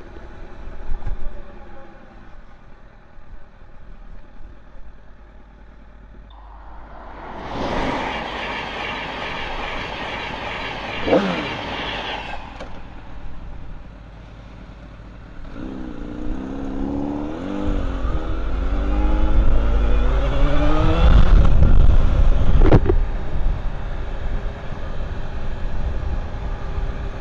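Honda Fireblade's inline-four engine accelerating twice, its pitch rising as it revs up, with wind rushing over the microphone during the second, longer pull.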